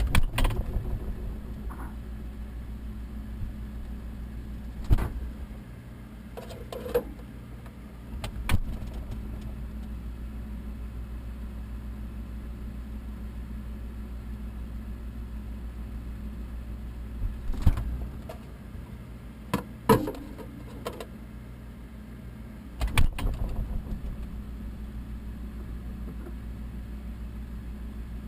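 A steady low engine hum, like a vehicle idling, broken by a handful of short knocks and rattles.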